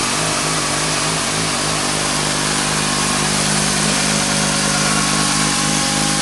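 Suzuki GSX-R600 K6 inline-four engine running steadily at a low, even speed through a Leo Vince aftermarket exhaust, with no revving.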